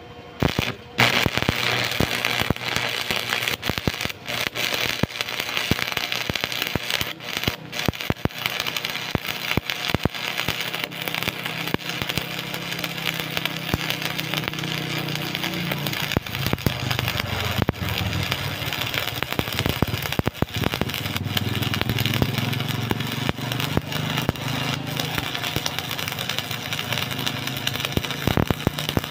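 Stick-welding arc from a Powerhouse transformer-type welder, the electrode crackling and sizzling steadily on steel plate. It is struck about a second in and runs with a few brief breaks, over a low hum.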